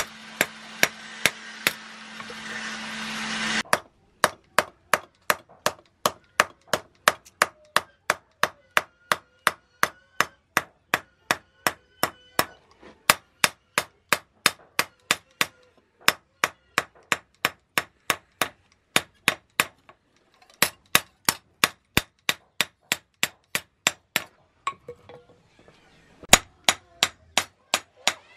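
Hand hammer striking a knife blade on a small steel anvil: a steady run of sharp metal-on-metal blows, about three a second, with brief pauses about twenty and twenty-five seconds in. Under the first few seconds a steady hiss with a low hum runs, then cuts off suddenly.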